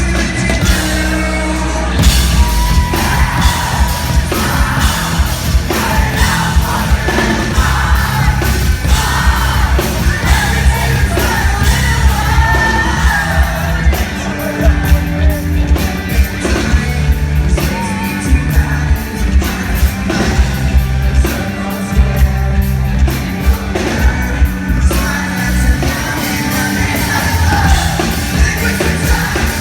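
Live rock band playing loud and distorted, with a singer's voice and drums, heard through a concert-goer's recording.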